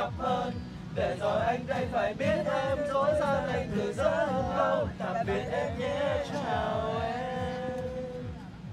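Several young men singing together in Vietnamese to a strummed acoustic guitar, the last note held for about two seconds near the end.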